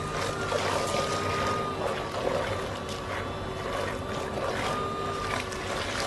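Portable bucket washing machine running: its small electric motor hums with a steady high whine while the impeller at the bottom churns soapy water and clothes, sloshing and splashing.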